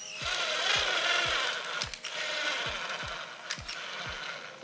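Cordless drill running as it drives a screw through a metal sofa-connector bracket, the motor noise strongest at first and growing weaker: the drill's battery is running flat. A steady low beat of background music runs underneath.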